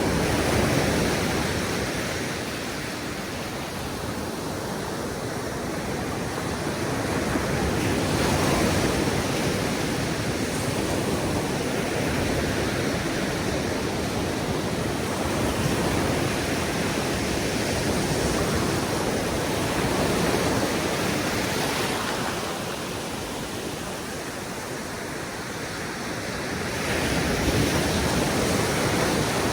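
Ocean surf: waves breaking and washing up the beach in a steady rushing noise that swells and eases over several seconds, with some wind on the microphone.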